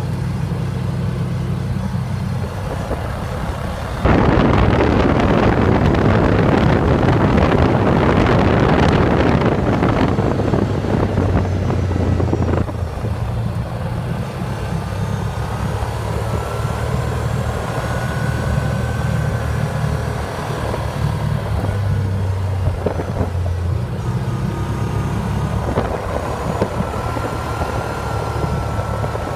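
Car driving slowly, its engine running with a steady low hum under the tyre and road noise. About four seconds in a loud rushing noise starts suddenly and stops just as suddenly some eight seconds later.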